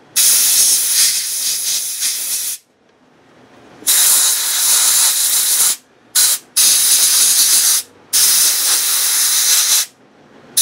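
Compressed-air blow gun blasting dust out of a Makita brushless tool's motor section in hissing bursts: four longer blasts and one short one about six seconds in.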